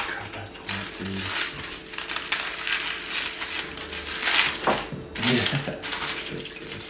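Aluminium foil crinkling and crackling as hands pull it open, in irregular small crackles, with louder crinkles about four and five seconds in.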